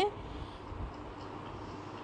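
The tail of a spoken word, then steady low background noise of the recording: a faint hiss with a low rumble underneath.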